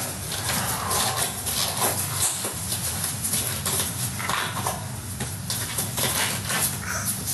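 A man groaning and breathing hard in distress, over a steady hiss and hum, with irregular rough noises and a few short moans.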